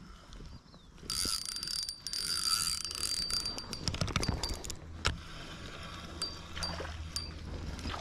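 Fishing reel cranked to wind in line: a whirring with rapid clicking for a few seconds, then a single knock and slower scattered clicks.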